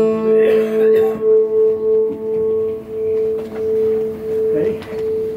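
A single held tone sustained throughout, pulsing about twice a second, with a fainter tone an octave lower that fades out about halfway through.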